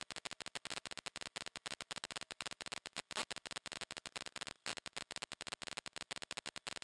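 Wind rush on a camera mounted on a sportbike at track speed, a steady hiss with no clear engine note, chopped by rapid dropouts so that it cuts in and out many times a second.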